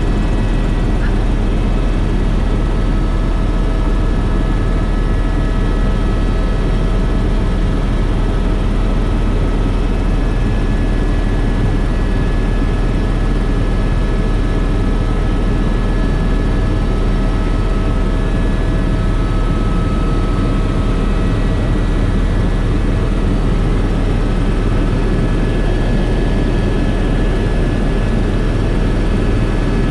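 Helicopter in flight heard from inside the cabin: a loud, steady drone of engine and rotor with a few constant whining tones over it.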